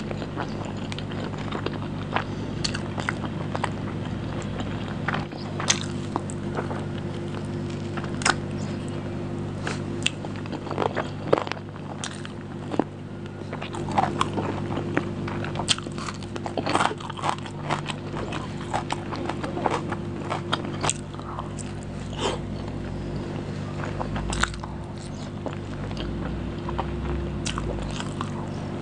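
Close-miked eating sounds of egg biryani eaten by hand: irregular wet chewing, lip smacks and small clicks, over a steady low hum.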